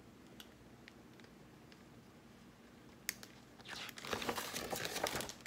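Faint room tone, then a little under four seconds in a stretch of paper rustling and crinkling as the pages of a picture book are handled and turned.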